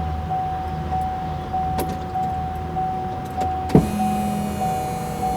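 Electric fuel pump priming a newly fitted diesel fuel filter with the ignition switched on. Its whirr stops, and after a sharp click about four seconds in it starts running again as the ignition is cycled.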